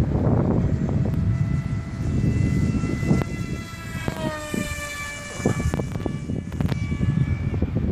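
Homemade radio-controlled stick plane's motor and propeller whining in flight, its pitch gliding down about four seconds in. Wind rumbles on the microphone underneath.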